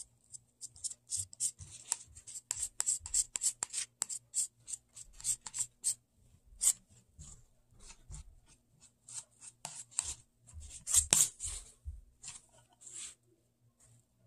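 Metal palette knife scraping soft, lightweight air-dry clay across a board and onto a tin can. A quick run of short scrapes, several a second, for the first six seconds, then slower scattered strokes, the loudest about eleven seconds in.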